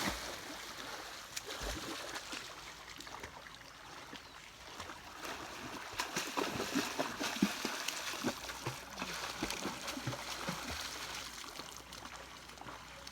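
Swimming in lake water: irregular small splashes and sloshing from swimming strokes, growing busier about halfway through.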